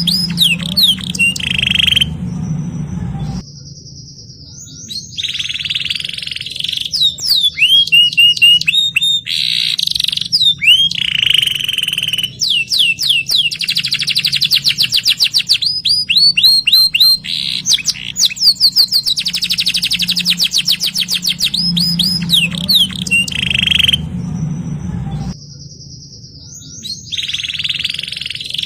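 Domestic canary singing a long run of song: rapid trills and rolls alternating with series of fast downward-sweeping whistled notes, each phrase lasting a second or two before the next begins.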